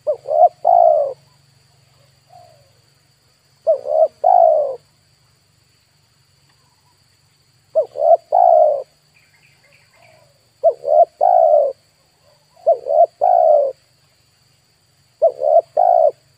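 Spotted dove cooing: six phrases of three or four notes each, coming every two to four seconds.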